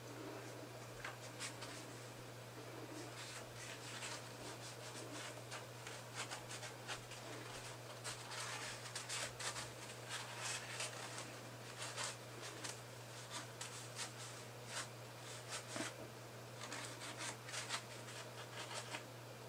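Paper towel rubbing and rustling against small 3D-printed plastic trigger parts as they are wiped with lubricating oil: a string of short, scratchy rustles that come thicker after the middle.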